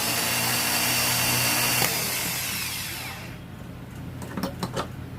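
Bosch starter motor spinning freely on a bench test with a steady whine. Power is cut about three seconds in and it winds down, its pitch falling. It runs smoothly after repair with a new solenoid switch. A few sharp clicks follow near the end.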